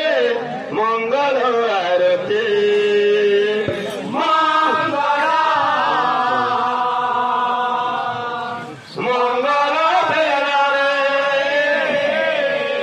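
A man singing a devotional kirtan chant in long, drawn-out melodic notes that waver in pitch, with a short break about nine seconds in.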